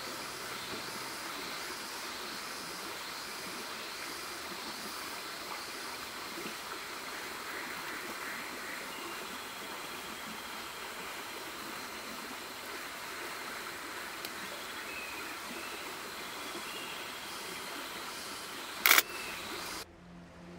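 Steady rush of running water. A single sharp click near the end, then the water sound cuts off abruptly.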